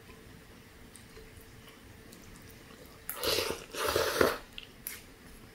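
Chicken pho noodles and broth slurped from the spoon and chopsticks: two loud, noisy slurps back to back about three seconds in, with a couple of small clicks after.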